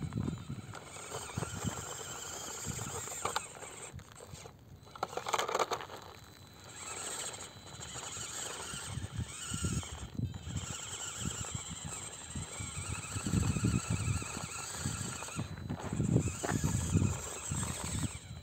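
Absima CR-18 Pro Hunter 1:18 mini crawler climbing a rock face: its small electric motor and drivetrain running under load, with irregular knocks and scrapes as the tyres grip and slip on the stone.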